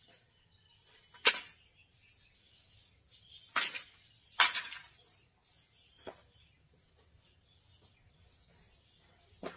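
Stiff cardboard packing being handled: a few short scrapes and rustles of cardboard strips and flaps. The loudest come about a second in and around four and a half seconds, with smaller ones near six seconds and at the very end.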